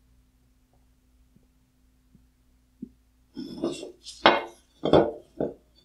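A finned metal heat sink from an LED headlight being handled and moved about on a wooden workbench. It is quiet at first, then about three seconds in comes a scrape of metal rubbing on wood, followed by a few short knocks and scrapes.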